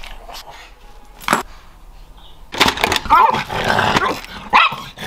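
Pet pugs vocalizing in a run of short, noisy calls starting about two and a half seconds in, after a quieter stretch with a couple of clicks.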